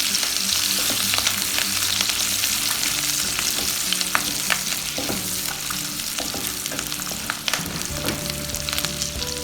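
Cashew nuts, dry red chillies, chopped garlic, ginger and green chillies sizzling in hot oil in a frying pan as they are stirred, with scattered clicks and scrapes from the stirring. The sizzle eases off a little toward the end.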